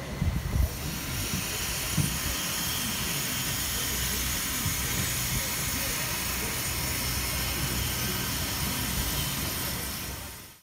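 Wind blowing across the microphone: a steady rushing hiss with an uneven low rumble, fading out at the end.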